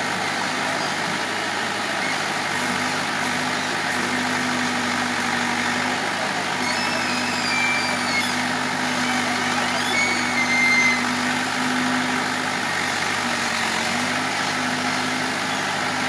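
Diesel engine of a Case 580 Super K backhoe loader running steadily while the backhoe arm digs, its tone dipping briefly about two-thirds of the way through. A few short high squeals come about halfway through.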